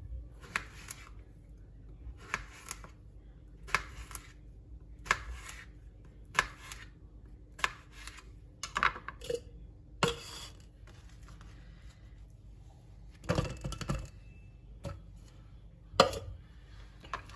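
Paring knife slicing a cucumber on a bamboo cutting board: a sharp knock each time the blade goes through and hits the board, about one every second and a half. Near the end, a short clatter of handling and one more knock as the knife is set down.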